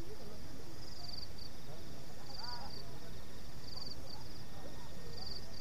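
A night insect chirps, cricket-like: a quick high trill followed by a short note, repeated about every second and a half, over a steady low rumble. A brief rising-and-falling call sounds once about halfway through.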